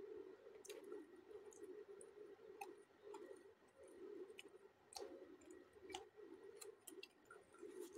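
Quiet close-up eating sounds: scattered soft clicks and squishes of fingers picking food from a plate, then crisp bites into a raw cucumber slice near the end.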